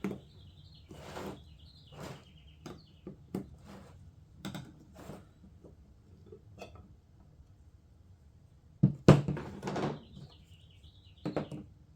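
Scattered light knocks and clatter of objects being handled and set down on a workbench, with a louder clunk about nine seconds in. A faint, high, wavering chirp is heard twice, near the start and near the end.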